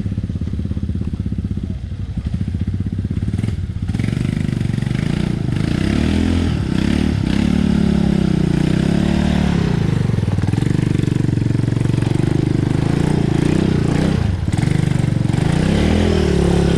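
ATV engine running, its pitch rising and falling over and over as the throttle is opened and eased. It gets louder about five seconds in.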